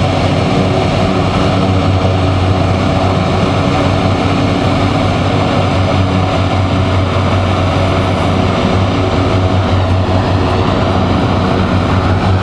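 Canadian Coast Guard hovercraft running, its engines and propellers giving a loud, steady sound with a strong low hum.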